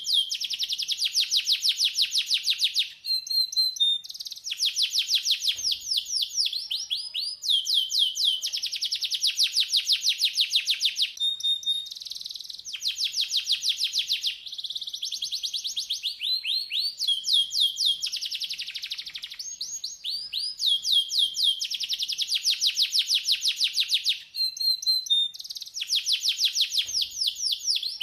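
Domestic canary singing: a long song of rapid trills, each phrase a fast run of repeated sweeping notes lasting two or three seconds, with short breaks and quick changes of note type between phrases.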